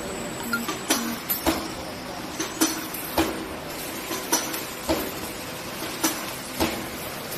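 R-pin wire bending machine running, its forming tooling striking in a steady clanking rhythm of about two strokes a second over the even hum of its electric motor.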